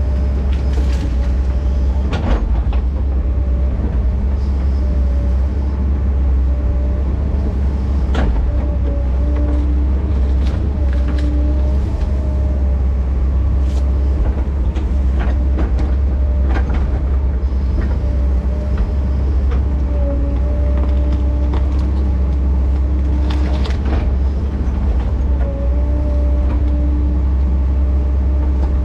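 Diesel excavator's engine running steadily under load while it digs, with a faint whine that comes and goes and scattered sharp metal clanks.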